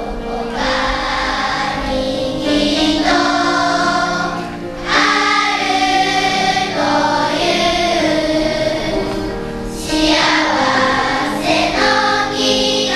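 A large choir of young schoolchildren singing together, in phrases with brief breaks about 5 and 10 seconds in.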